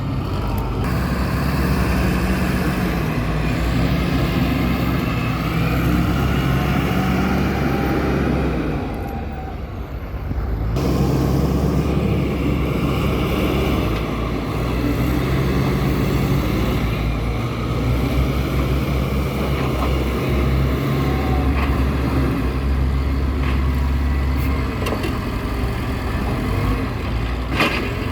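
Heavy diesel engine of a truck or loading machine running steadily. It drops away briefly about nine seconds in, then picks up again, with a short sharp knock near the end.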